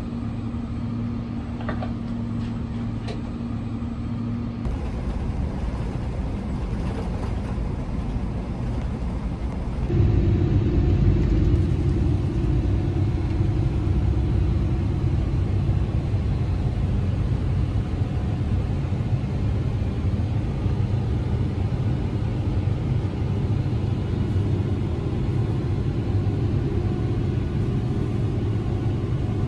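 Airliner cabin noise: a steady low rumble of jet engines and rushing air with a constant hum. It gets louder about ten seconds in, as the plane takes off and climbs out.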